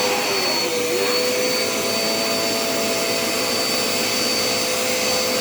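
Dirt Devil Endura Reach upright vacuum cleaner running steadily: a constant motor noise with a steady mid hum and a high whine above it.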